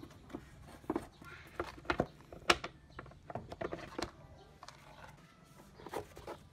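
Irregular plastic clicks and knocks as a Toyota Prius's air cleaner box is opened and the air filter element is lifted out. The sharpest knock comes about two and a half seconds in.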